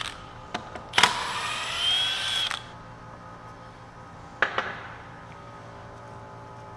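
Cordless power tool running briefly, a whir that climbs in pitch for about a second and a half after a sharp start. A few small clicks come before it, and a single metallic knock follows about four and a half seconds in.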